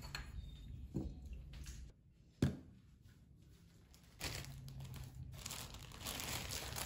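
Tableware set down on a table with two knocks, the second, about two and a half seconds in, the loudest. This is followed by a few seconds of crinkling plastic as a slice of bread is taken from its bag.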